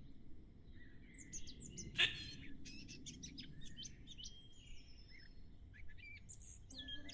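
Small birds chirping, many short calls in quick succession, over faint low background noise, with one sharp sudden sound about two seconds in.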